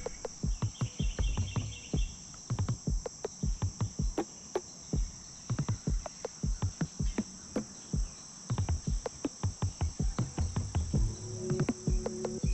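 A steady, high-pitched chorus of insects shrilling by the creek, with a stream of irregular soft low knocks over it.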